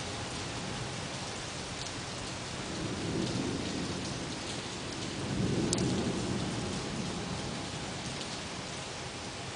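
Steady rain falling during a thunderstorm, with two low rolls of thunder that swell and fade, about three and six seconds in; the second is the louder.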